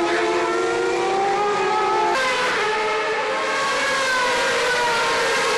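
Superleague Formula race car's V12 engine running at high revs on a wet track. Its note holds steady, changes abruptly about two seconds in, then slowly falls in pitch.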